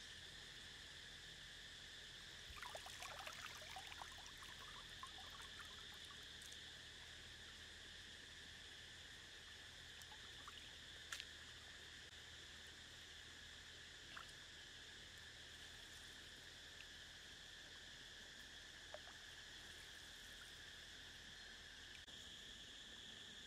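Faint steady high-pitched drone of insects in riverside vegetation, with light splashing and trickling of water a few seconds in as the bamboo fish trap is handled in the river, and an odd single click.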